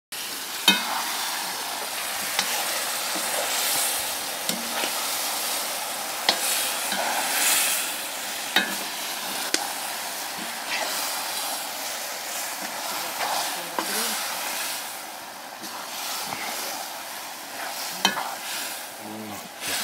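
Vegetables sizzling in hot oil while being stirred in a pot, with a steady frying hiss and the utensil now and then scraping and knocking against the pot.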